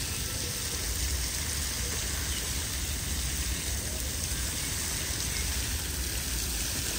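Park fountain running: a steady wash of spray falling and splashing onto water, with a steady low rumble underneath.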